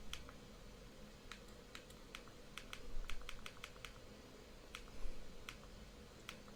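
Small plastic buttons being pressed, about a dozen light clicks at irregular spacing, quickest in a run near the middle.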